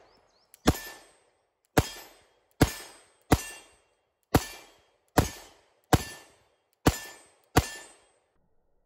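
Semi-automatic handgun firing nine shots at a steady pace, about one a second, each sharp report followed by a short echoing tail.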